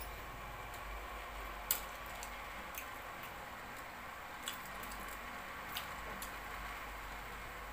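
Quiet eating of sticky rice cakes: a handful of small sharp clicks and smacks from mouth and fork, the clearest about one and a half seconds in, over a steady low hiss.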